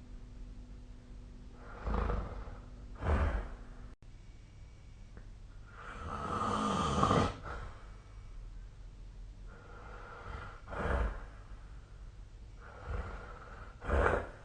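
A sleeping person snoring, in several separate noisy breaths at irregular intervals. One drawn-out snore around the middle is longer than the rest.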